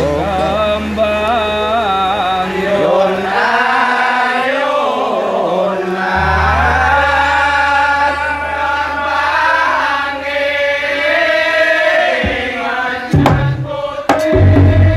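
Chanted singing in long, wavering melismatic lines over a low held note that drops out for a few seconds and returns. Near the end, hand-drum strokes come in.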